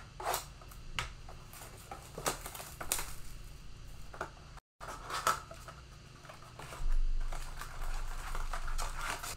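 A cardboard football-card blaster box being opened and its foil-wrapped packs handled: scattered taps and clicks at first, then a longer stretch of rustling and crinkling in the second half.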